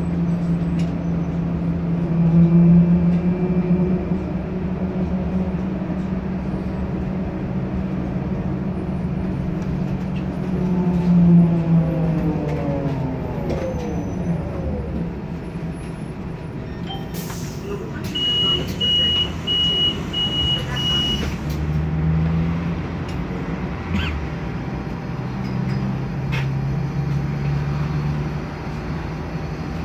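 Electric trolleybus heard from inside: a steady pitched motor whine that falls in pitch as the vehicle slows. With the trolleybus standing, a hiss comes with a run of five short high beeps, and a low hum picks up again near the end.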